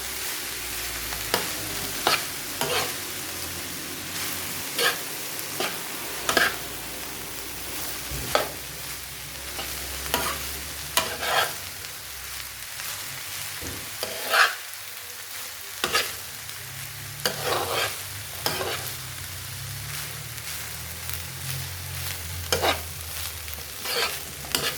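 Cooked rice frying in a pot with a steady sizzle. A cooking utensil scrapes and knocks against the pot every second or so as the rice is stirred and turned.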